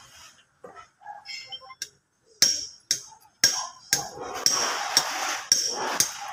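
Hammer striking metal: sharp ringing blows about two a second, starting about two and a half seconds in, after a few scattered faint knocks.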